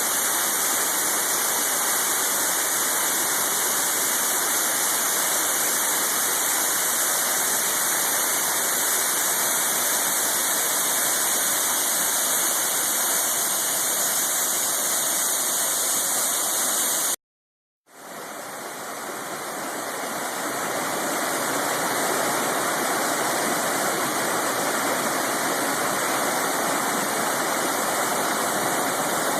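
Steady loud rush of a waterfall. About 17 seconds in it breaks off for a moment, and the rush of a second waterfall fades back in over a few seconds.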